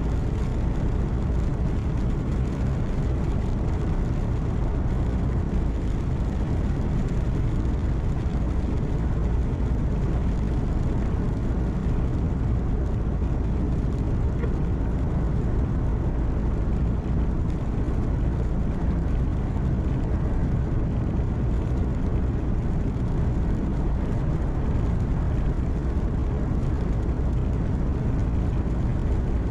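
Truck engine and road noise heard inside the cab while driving: a steady low drone with no changes.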